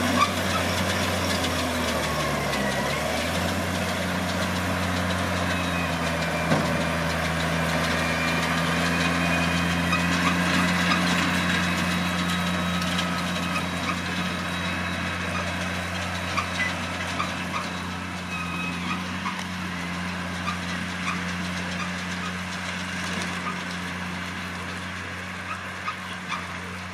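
New Holland T6070 tractor's six-cylinder diesel engine running steadily while working a Vicon round baler. The engine note dips briefly a couple of seconds in. The sound grows gradually fainter over the second half, with scattered short mechanical knocks.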